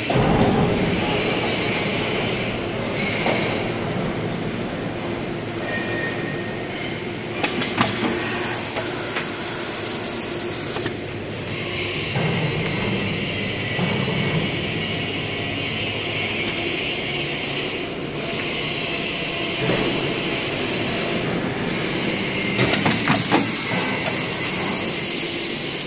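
Corrugated plastic hose extrusion line running: a steady machine hum with a constant hiss. Short clattering bursts come about 8 seconds in and again near the end.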